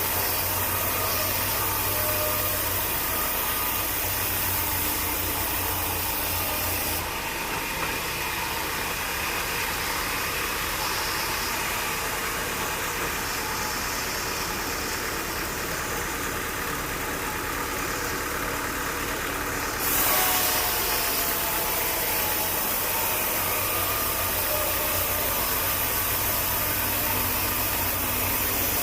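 Sawmill machinery running steadily with an engine-like hum and noise; the sound changes abruptly about 7 seconds in and again about 20 seconds in.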